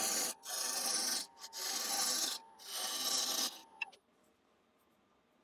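A turning tool cutting the outside of a spinning ash blank on a wood lathe, truing it up. There are four noisy passes of about a second each with short breaks between, and the sound cuts off abruptly about four seconds in.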